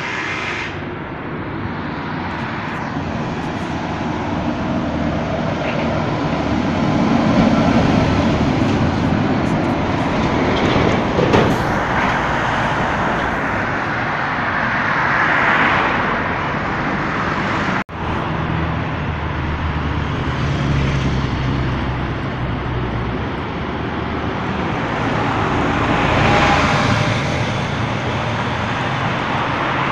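Road traffic passing close by: cars and heavy diesel vehicles, including an articulated lorry, go by one after another, each swelling and fading with tyre noise and engine sound. The sound breaks off for an instant a little past halfway.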